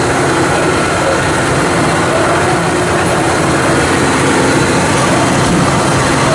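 The Furano–Biei Norokko train's diesel locomotive running with a steady low engine drone under a constant wash of train noise.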